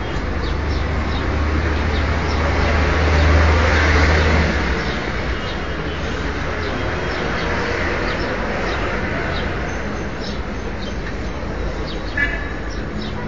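Outdoor street background: steady traffic noise with a low rumble in the first few seconds, and small birds chirping now and then, with one clearer call near the end.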